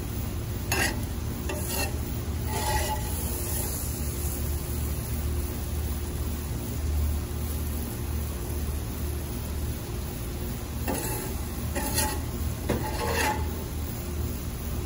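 Spatula scraping and scooping steak, peppers and onions in a few short strokes about a second in and near 3 s, then again around 11 to 13 s, over a steady hiss and low hum.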